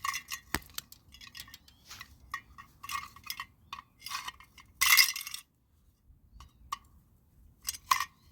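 Metal parts of a vacuum cleaner motor clinking and clattering as they are handled and pulled apart, with short ringing clinks; the loudest clatter comes about five seconds in, another near the end.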